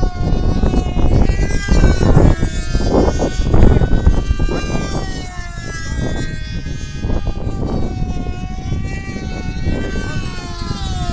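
Radio-controlled pylon racing model airplanes' small two-stroke engines whining high, their pitch wavering up and down as the planes circle the course. Wind gusts buffet the microphone, heaviest in the first few seconds.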